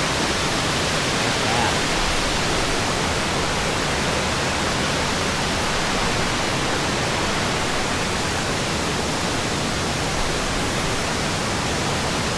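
Steady, even rush of High Shoals Falls, a tall plunge waterfall, heard close up.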